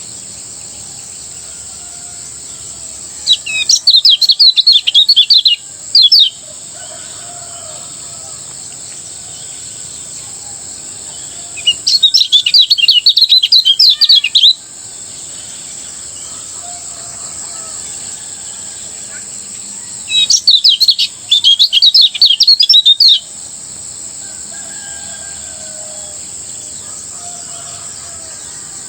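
Kecial kuning songbird singing in its fast, rapid-fire 'ngejos' style: three loud bursts of quick, high chattering notes, each about three seconds long, spaced roughly eight seconds apart. Between the bursts there is a steady high hiss and faint, lower calls in the background.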